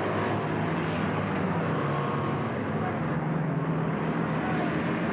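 Citroën 2CV race cars' air-cooled flat-twin engines running hard, a steady engine note whose pitch rises and falls as they race.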